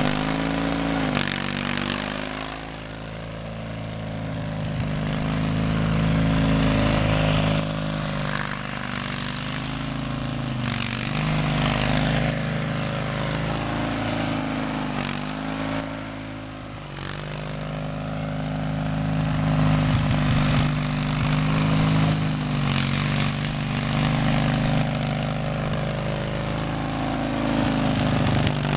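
A 1970 Wheel Horse garden tractor's 16 hp Briggs & Stratton opposed-twin engine running loud through two upright exhaust stacks as it drives in second gear: a deep rumble whose pitch and loudness swell and fade several times as it passes back and forth.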